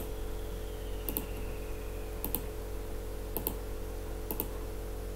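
Computer mouse clicking about once a second, five times, each click a quick press-and-release pair, as objects are selected one after another. A steady low electrical hum sits underneath.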